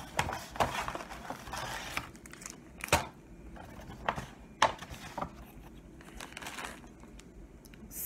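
A plastic snack bag crinkling and rustling as it is handled, with a few sharp clicks and taps in between.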